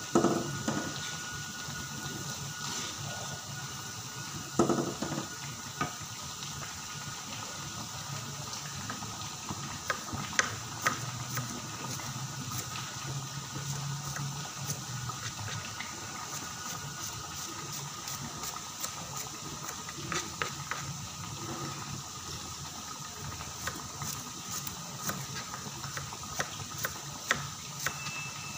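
Sliced bawang sumenep deep-frying in a large wok of hot oil: a steady bubbling sizzle with scattered crackles and pops. A single knock about five seconds in.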